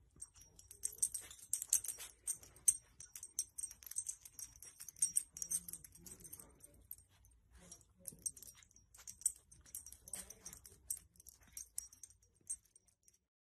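A small dog tugging and nosing a soft blanket, making quiet, irregular rustling and scratchy clicks of fabric. The rustling pauses briefly about seven seconds in and dies away near the end.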